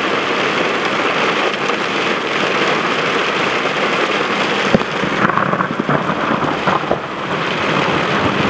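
Heavy downpour: rain falling hard and steady. About halfway through there is a sharp knock, after which the rain sound turns duller and patchier for a couple of seconds.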